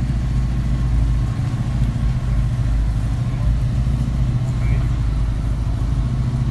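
A Fiat 131 rally car's engine idling steadily, a low even running note with no revving.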